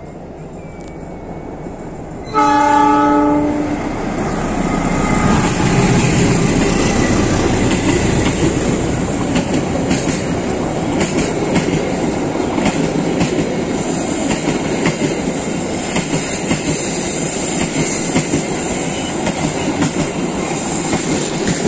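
Argo Wilis passenger train approaching behind its diesel locomotive, which sounds its horn once, a single blast of about a second and a half a couple of seconds in. The locomotive and carriages then pass close by with a steady rumble and the clickety-clack of wheels over the rail joints.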